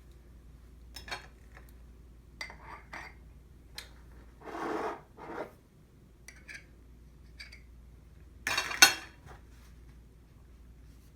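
Kitchenware being handled: scattered clinks of a utensil against dishes and two short scrapes in the middle, with one sharp clank near the end that is the loudest sound.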